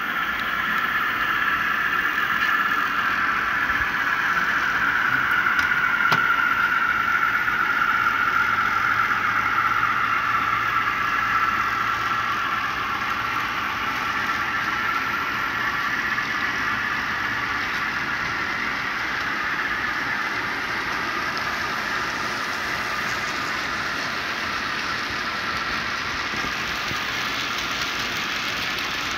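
HO-scale model train running on the layout: a steady whirr of small metal wheels rolling on the rails and the locomotive motors, its pitch sagging slightly and then rising again as the train comes close.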